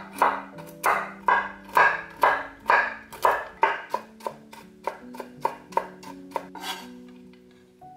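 Large kitchen knife chopping nuts on a wooden cutting board: sharp knocks about two a second, then lighter, quicker chops about three a second that stop about seven seconds in.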